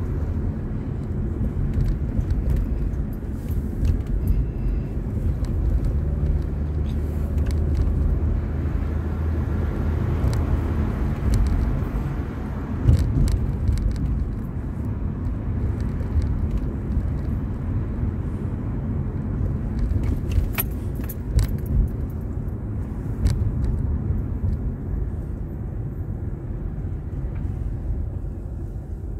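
Inside a moving car: steady engine and road rumble as it drives at low speed, with scattered light clicks and one louder knock about halfway through.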